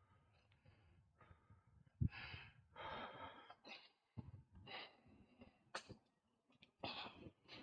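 A cyclist huffing and puffing hard while pedalling uphill. Breaths come about once a second, starting about two seconds in.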